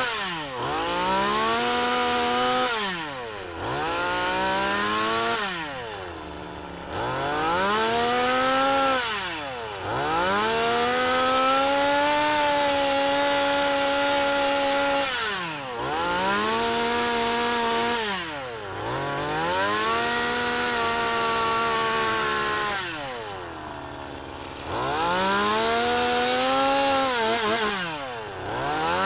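Two-stroke chainsaw with a dime-tip carving bar, revved up and let back to idle about seven times in short cuts into a wooden block, with one longer hold near the middle. These are the short cuts that carve out the wood between a jack-o'-lantern's teeth.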